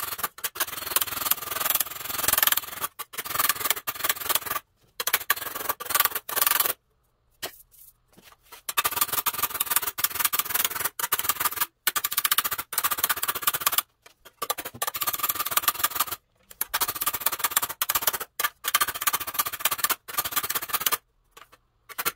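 Rapid hammer-on-dolly blows: a steel body hammer striking a small sheet-steel panel backed by a steel dolly, stretching the metal so it domes up. The blows come in quick runs with a ringing metallic tone, broken by several short pauses, the longest about seven seconds in.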